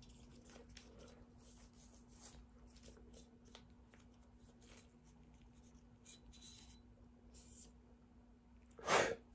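Faint, scratchy scrubbing of a small cleaning brush or swab working into the crevices of a Glock 19 pistol slide, in short irregular strokes, over a steady low hum. A brief, louder rush of noise comes near the end.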